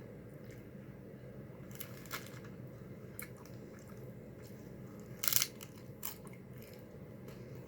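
A few short crunches and crackles as tacos are assembled by hand, the loudest cluster about five seconds in, over a steady low hum.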